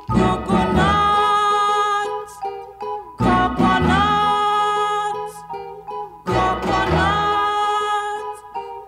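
Background music led by plucked strings such as a ukulele, in phrases that restart about every three seconds, each opening with a short rising slide.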